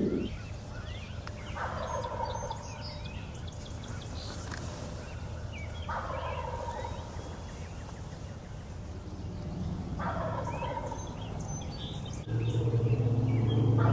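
Wild turkey gobbling three times, about four seconds apart, each a rapid rattling call that falls in pitch. Near the end a louder steady low hum comes in.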